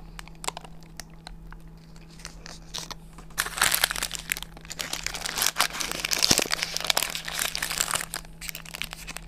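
Shawarma's paper wrapper crinkling and rustling as it is handled and torn back during eating. Scattered mouth clicks of chewing come first; the crinkling grows loud from about three and a half seconds in until near the end.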